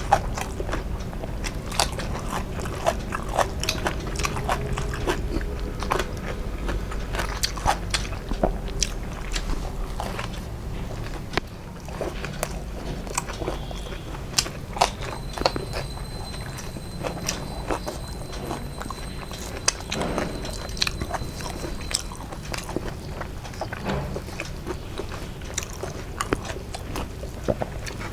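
A person chewing food close to the microphone, with many irregular wet mouth clicks and occasional crunches, over a low steady hum.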